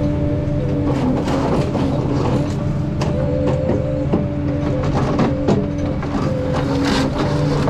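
Ponsse Scorpion King forestry harvester at work: engine and hydraulics running steadily with a constant whine, under a run of irregular cracks and knocks as wood is handled by the H6 harvester head.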